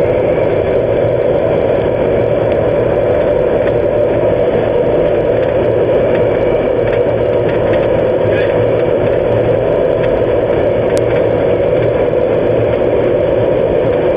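Fire-test furnace flames burning steadily: a constant rushing noise that holds the same level throughout.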